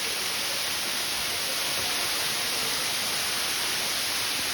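Waterfall rushing: a steady, even hiss of falling water with no let-up.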